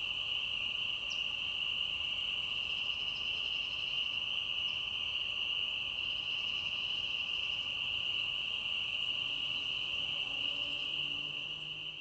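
Steady chorus of insects, a continuous high trill that does not let up, with faint lower-pitched calls coming in near the end as it begins to fade.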